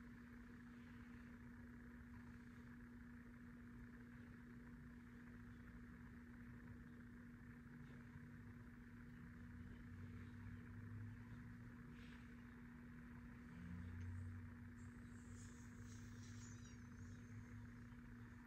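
Near silence: room tone with a steady low hum, and a few faint low bumps in the middle.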